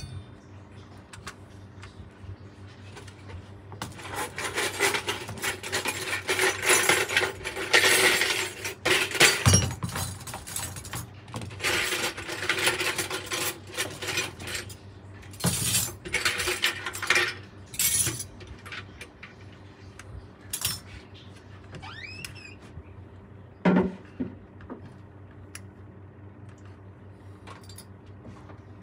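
Metal parts and tools clinking, rattling and scraping on a workbench, in busy clusters for the first half and then as scattered single clicks.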